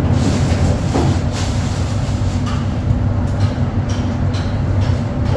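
Loud steady low mechanical hum, with a few faint clicks and knocks of small objects being handled.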